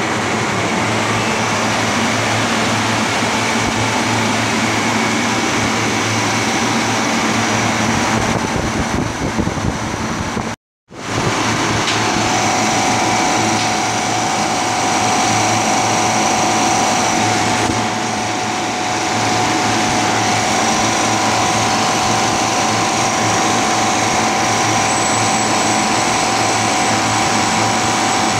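Refrigeration condensing unit running steadily: the Bitzer semi-hermetic compressor and its condenser fan, a constant mechanical noise with a few steady tones in the later part. The sound cuts out completely for a moment about a third of the way through.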